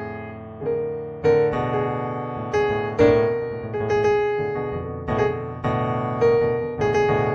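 Solo piano background music: slow single notes and chords, struck about once or twice a second and each left to ring and fade.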